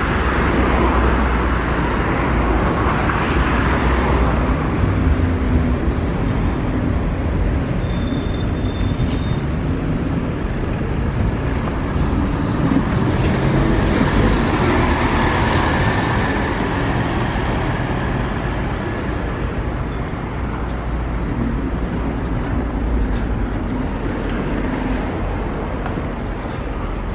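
City road traffic, with a car passing close by near the start. An articulated city bus drives past close by about halfway through, its engine and tyre noise swelling and then fading.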